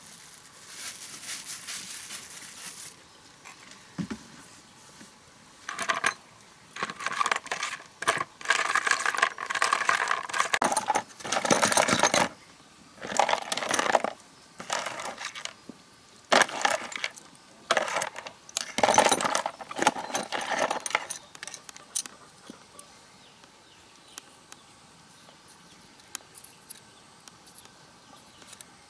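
Small metal oil pipe clinking and rattling against a plastic basin as it is scrubbed in liquid, in many short bursts that stop about two-thirds of the way through.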